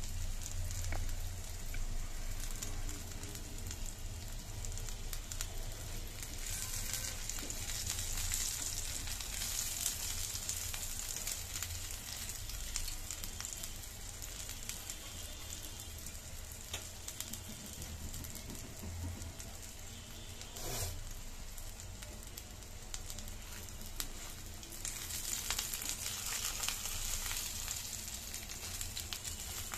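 Oil sizzling and bubbling around egg-filled Mughlai parathas shallow-frying in a pan. The sizzle swells for a few seconds about a quarter of the way in and again near the end, with a single sharp click about two-thirds through.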